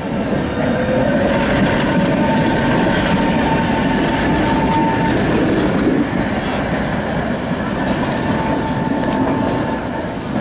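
Two-car Tatra T3 tram set passing close by, its wheels rumbling and clacking over the rails, loudest as it goes past. A thin high-pitched tone rings over the rumble at times.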